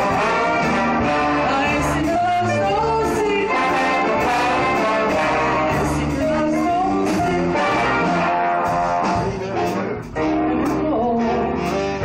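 A woman singing into a microphone with a live band, backed by a drum kit with cymbals.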